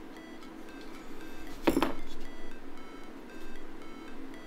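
Quiet electronic background music of short, evenly repeating synth notes, with one sharp knock a little under two seconds in as plastic phone housing parts are handled and pressed together.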